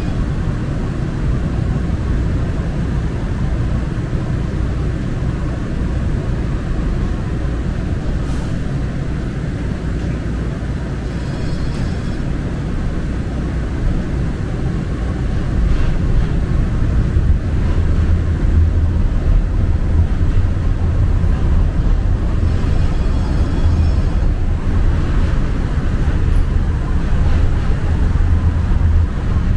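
Muni Metro light-rail train running, a steady low rumble heard from inside the car that grows louder from about halfway through.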